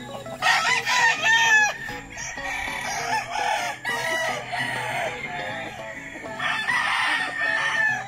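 Roosters crowing: a loud crow about half a second in and another near the end, with softer calls between.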